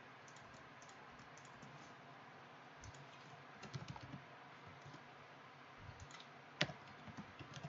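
Faint typing and clicking on a computer keyboard, scattered light key clicks with one sharper click near the end.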